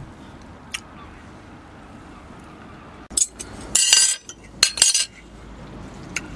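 Metal knife and fork scraping and clinking against a ceramic plate as they are laid down together on it, a cluster of sharp clinks lasting about two seconds near the middle.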